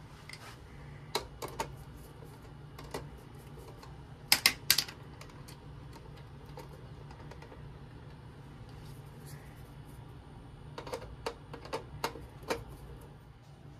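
Oil-fired boiler burner running with a steady low rumble, under scattered sharp clicks and taps of hand-tool work on the unit. The two loudest clicks come about four and a half seconds in, and a quick run of them comes near the end.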